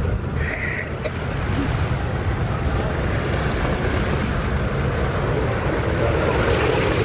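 Douglas DC-6A's four Pratt & Whitney R-2800 radial piston engines running as the airliner taxis past, a steady propeller rumble that grows louder as it draws near.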